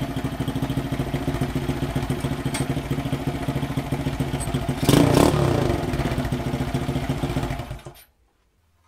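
Honda Chaly's small single-cylinder four-stroke engine running at idle through an open star-shaped exhaust pipe, with a brief louder burst about five seconds in; the engine cuts off suddenly near the end.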